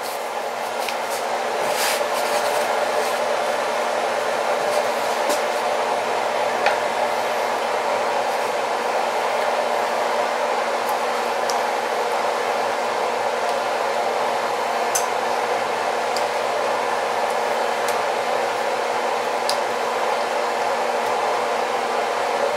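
An electric fan running with a steady whir and a low hum, the level rising slightly in the first two seconds and then holding even. A few faint light ticks sound over it.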